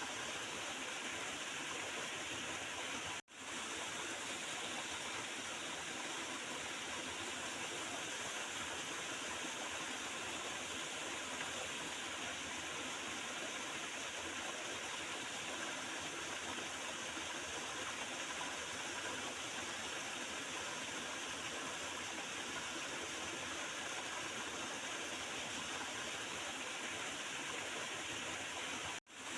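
Small river flowing with steady gurgling water, cutting out for a split second about three seconds in and again near the end.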